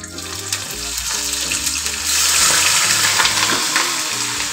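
Whole spices, fennel, mustard seed and cumin, with green chillies hitting hot oil in a kadhai, sizzling; the sizzle grows much louder about halfway through as chopped tomato goes in. Steady background music sits underneath.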